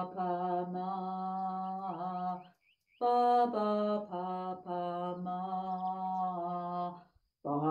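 A woman chanting the syllables "ba-ba, pa-pa, ma" on a low, near-steady note, pausing for a breath about two and a half seconds in and again near the end. It is a Sanskrit-based breathing chant, sung so that the sound's vibration is felt and helps the breathing.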